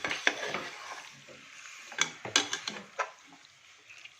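Spatula stirring chicken leg pieces frying with onion in a pan: a light sizzle under a handful of sharp knocks and scrapes of the spatula against the pan, bunched about two to three seconds in.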